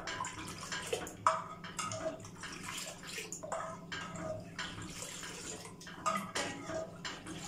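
A metal spoon working in a bowl of warm milk: liquid sloshing, dripping and plopping, with light clicks of the spoon against the bowl, scattered irregularly.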